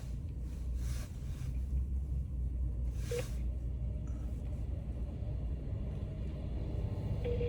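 Low steady vehicle rumble. A short beep comes about three seconds in, and a telephone ringback tone begins just before the end, as an outgoing call rings.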